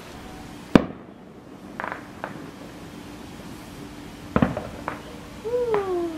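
Aerial fireworks shells bursting in the distance: two sharp booms, the loudest about a second in and another just past four seconds, with smaller pops and crackles between them.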